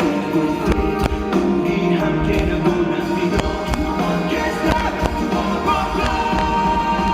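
Live rock band music: drums hitting steadily under sustained guitar and bass, played loud.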